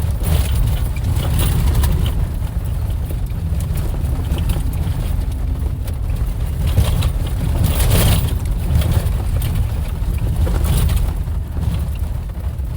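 Off-road vehicle driving over a rough dirt trail: a steady low rumble of engine and tyres, with scattered knocks and rattles from bumps.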